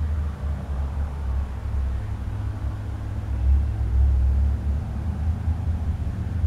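A steady low rumble with a constant hum, without any distinct clicks or shots.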